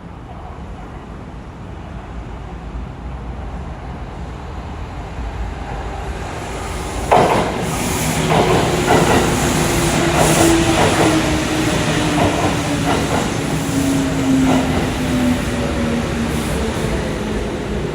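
Kintetsu 8600 series electric train pulling into a station: a rumble grows louder, with a sudden sharp noise about seven seconds in. Then come wheels clacking over rail joints and a whine falling slowly in pitch as the train slows.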